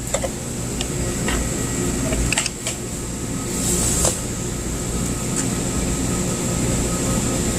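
Steady low machine hum with scattered short clicks and taps of wire connectors being crimped and fitted onto compressor terminals, and a brief hiss a little before the middle.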